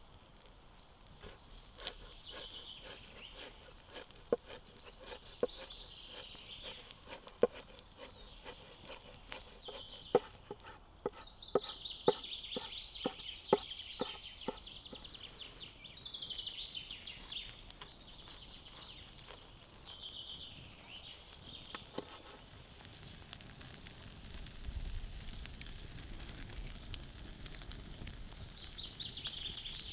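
A broad knife chopping chives on a wooden cutting board: sharp knocks, a few scattered at first, then a quick run of about two to three strokes a second midway. Birds sing in the background throughout, and near the end a low rumble of a wood fire comes in.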